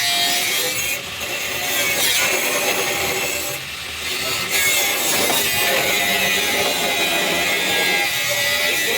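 A power tool working metal, a continuous harsh, noisy whine with a wavering tone under it. The level dips briefly about a second in and again around three and a half seconds in.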